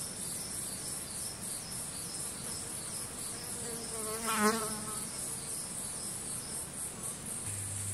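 Forest insects chirping in a steady, high, regularly pulsing trill. About four seconds in comes one short call with a wavering pitch, the loudest sound.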